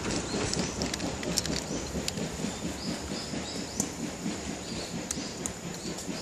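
C57 steam locomotive's exhaust beats as it pulls away, a rapid run of chuffs that fades slightly.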